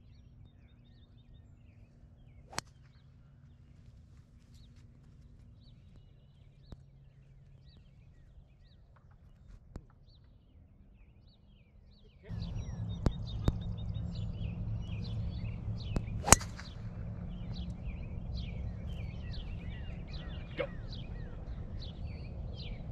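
A golf club striking a ball: one sharp crack a little past halfway, the loudest sound here. Birds chirp throughout. About halfway in, the quiet background gives way suddenly to a steady rush of outdoor noise.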